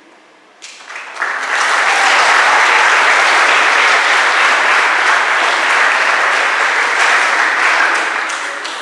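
Audience applauding: the clapping starts suddenly about half a second in, swells quickly to a full steady level, and fades away near the end.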